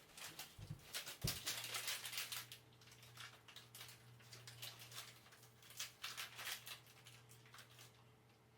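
Cats shifting about in a cardboard box: irregular light scratches and rustles. A low steady hum sets in about a second in.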